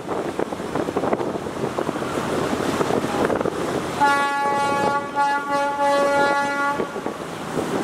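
Wind and choppy river water rushing, with wind buffeting the microphone. About four seconds in, a passenger launch's horn sounds one long blast of several notes at once, lasting nearly three seconds.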